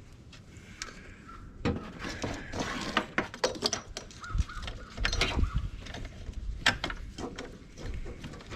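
Socket and hand ratchet driving the blower motor's 5/16 bolts back in: a dense run of irregular clicks and metallic knocks with brief squeaks, starting about a second and a half in.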